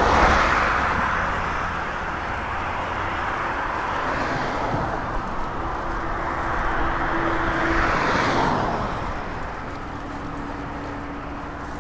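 Road traffic noise: cars passing, their tyre and engine noise swelling and fading, loudest near the start and again about eight seconds in, over a steady low rumble.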